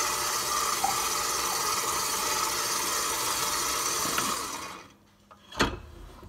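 KitchenAid stand mixer motor running steadily at slow speed, its dough hook turning through a wet flour-and-yeast dough. It stops about five seconds in, and a single sharp knock follows.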